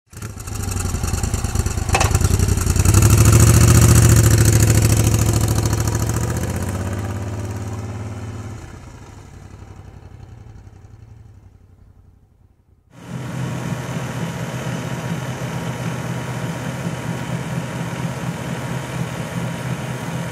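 A motorcycle engine running with a steady note, loudest about four seconds in, then fading away over the next several seconds. After a short gap, a steady mechanical hum starts abruptly and runs on evenly.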